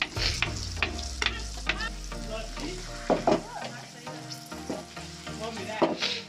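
Chopped onion and carrot dropped into a pan of hot oil with peas and green chili, sizzling as they fry, with clicks and scrapes of stirring.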